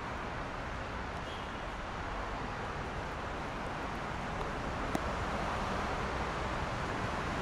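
Steady hiss of city traffic on rain-wet roads, a continuous wash of tyre and engine noise that swells slightly about two-thirds of the way through.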